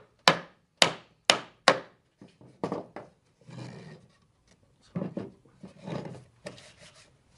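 Hammer knocking on wood as the bottom panel of a hand-made hexagonal wooden box is driven into place. There are five sharp blows, about two a second, then quieter, irregular knocks and a short rasping noise.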